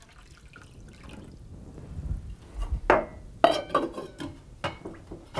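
Water poured from a glass jug into a stainless steel pot around a glass jar, a rushing pour that builds over the first few seconds. In the second half come several sharp clinks of glass against the metal pot.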